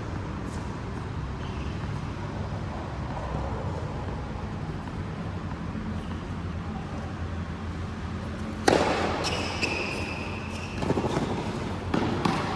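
Steady court ambience, then a flurry of sharp racket-and-ball hits in a rally starting about two-thirds of the way in. The first hit is the loudest, followed by a high squeak-like tone lasting about a second, typical of shoes on the court floor.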